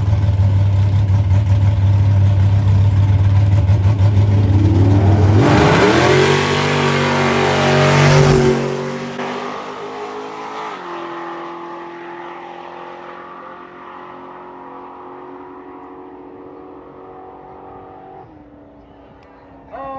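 Drag racing cars' engines running loud and steady at the line, then revving up hard about five seconds in as they launch, loudest about eight seconds in. The sound then fades away down the quarter-mile track, with one step down in pitch near eleven seconds.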